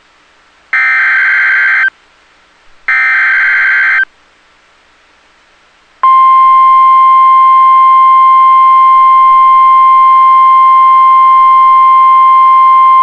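Emergency Alert System SAME header data bursts: two harsh, buzzing, one-second bursts of encoded data about a second apart, carrying the alert's event and area codes. After a two-second pause, the NOAA Weather Radio 1050 Hz warning alarm tone starts abruptly and holds steady.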